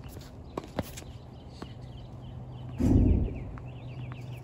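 Tennis ball struck on a serve and bouncing on the hard court: two sharp pops less than a second in. About three seconds in comes a brief loud low rumble, the loudest sound here, and small birds chirp in the background.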